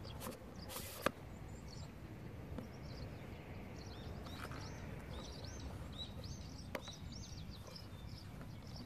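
Small birds chirping in quick repeated calls over a steady low background rumble, with a sharp click about a second in and another later on.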